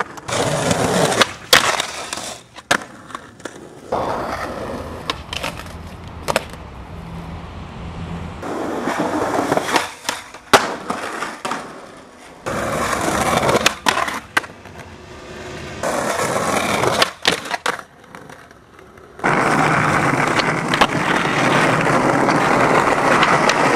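Skateboard wheels rolling over pavement in several separate runs, the longest and loudest in the last few seconds, broken by sharp clacks of the board popping and landing.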